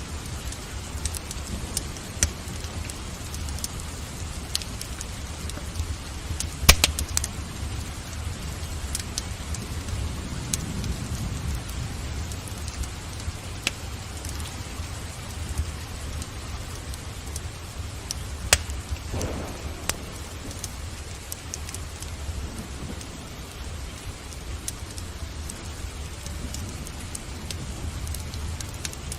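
Steady rain over a low rumble, with the sharp pops and crackles of a burning wood fire every few seconds; the loudest pop comes about seven seconds in.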